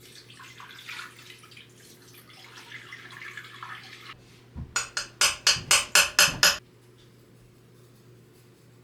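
Faint scattered rustling, then about halfway through a quick run of about nine loud, sharp strokes over two seconds, about four or five a second, which stop abruptly.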